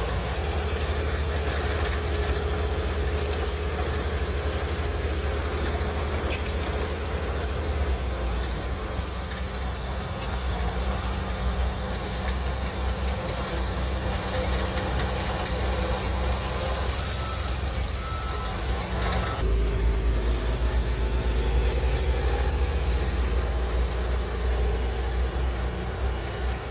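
Shantui DH17C3 bulldozer's diesel engine running steadily under load, with a thin high whine over it for the first several seconds. About twenty seconds in the engine sound changes abruptly and the low rumble grows louder.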